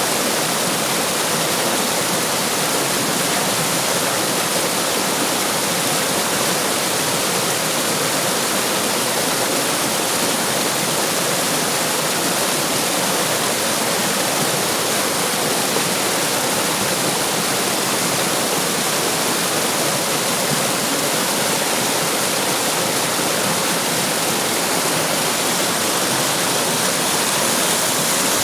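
Running water rushing and splashing steadily, a constant even hiss with no change.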